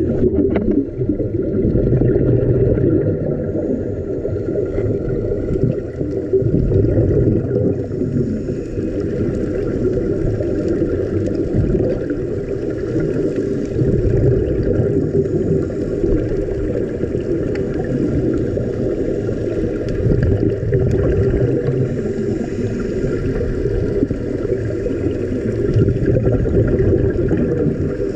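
Steady low rumble of water noise that swells and eases every few seconds.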